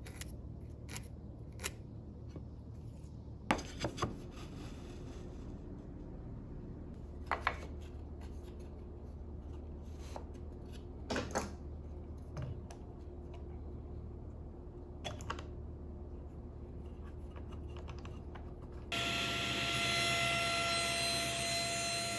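Small clicks and knocks of hand tools and wood being handled and clamped, then about 19 seconds in a table saw switches on and runs steadily at speed, not yet cutting.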